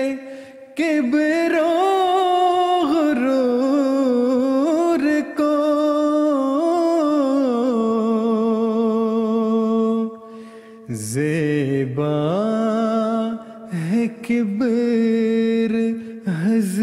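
A man's voice singing an Urdu nazm, a devotional poem, in long held notes with wavering ornaments. He breaks off briefly for breath twice.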